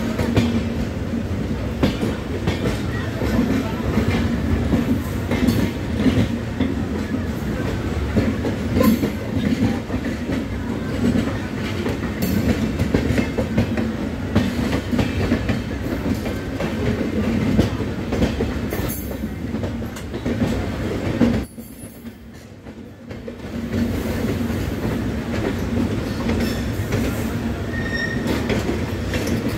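Passenger train running noise heard from an open coach window: steady rumble of wheels on the rails with irregular clattering knocks, as another express runs on the parallel track. About two-thirds of the way through the sound suddenly drops much quieter for roughly two seconds, then returns.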